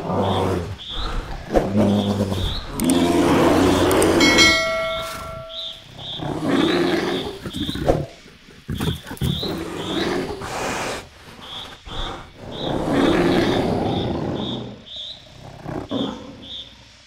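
Two bears fighting, roaring and growling loudly in several long bouts with short pauses between them. A high chirp repeats about two to three times a second in the background.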